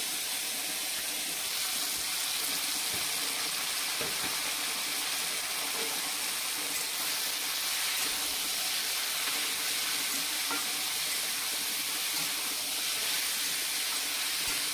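Shredded cabbage and potato frying in hot oil in a metal kadai: a steady sizzle, with a few faint knocks of a metal spatula as the vegetables are stirred.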